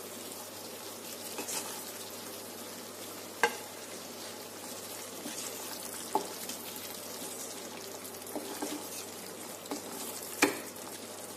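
Masala paste sizzling steadily in a frying pan as fried brinjal halves are stirred into it, with three sharp knocks of a wooden spatula against the pan.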